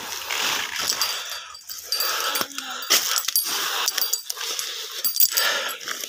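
Footsteps crunching and rustling through dry banana leaves and undergrowth on a steep climb, with hard, panting breaths from a tired climber.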